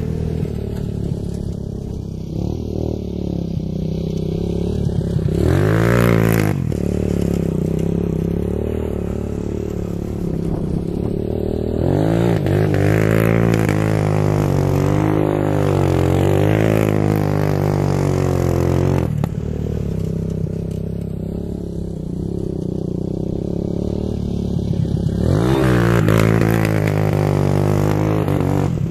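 Bashan quad bike engine running hard on a sandy track, its pitch rising and falling with the throttle. It grows louder and rises sharply three times as the quad passes close.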